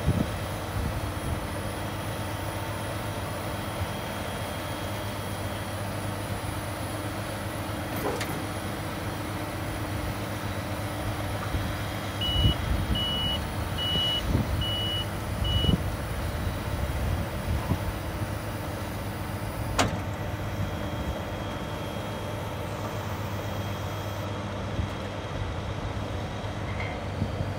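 Claas Jaguar forage harvester engine idling steadily while its 750 corn head is folded and unfolded, with a run of five short, evenly spaced electronic warning beeps about halfway through.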